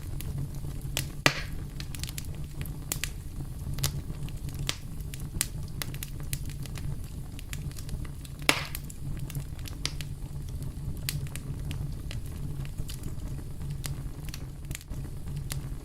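Wood fire burning with a steady low rumble and frequent sharp crackles, with two louder pops, one about a second in and one about halfway through.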